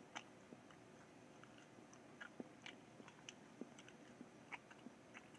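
Faint mouth sounds of a person chewing a wad of tissue paper, with scattered small irregular clicks.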